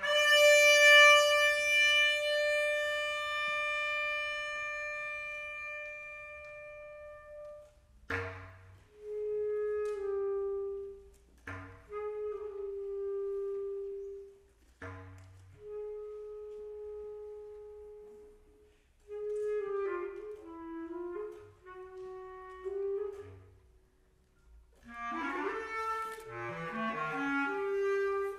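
Solo bass clarinet playing contemporary concert music. A long high note fades away over about eight seconds. Then come held notes, several of them opening with a sharp percussive attack, and near the end a quick run of notes moving lower.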